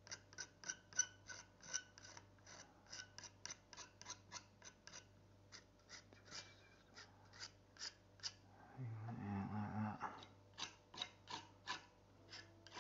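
Metal palette knife scratching and dabbing oil paint into a heavily textured canvas panel: faint, quick short scrapes, about four or five a second, pausing briefly about five seconds in, with one longer continuous scrape about nine seconds in.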